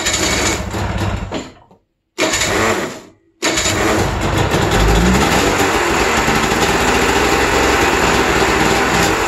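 2003 Arctic Cat Pantera 550's twin-cylinder two-stroke snowmobile engine, turned over by its electric starter in two short bursts, then catching about three and a half seconds in and running steadily, with a brief rev near five seconds.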